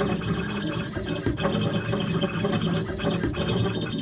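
Ilco Engrave-It Pro key engraving machine running, its diamond drag cutter scraping lettering into a metal key as the head moves, with a steady motor tone underneath.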